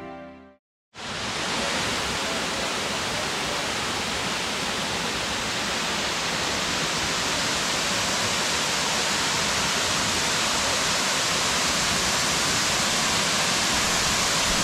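Waterfall running: a steady, even rush of falling water that begins about a second in, after background music fades out.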